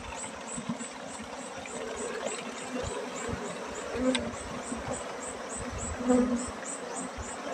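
Honeybees buzzing around an opened log hive as the comb is cut out, the buzz swelling loudly as bees fly past about four and six seconds in. A high chirp repeats steadily about three times a second throughout.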